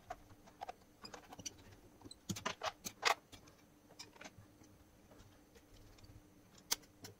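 Faint plastic clicks and taps as a DM-85T digital multimeter's back case and tilt stand are fitted and screwed shut with a small precision screwdriver. There is a quick run of clicks about two to three seconds in, then a few scattered ticks.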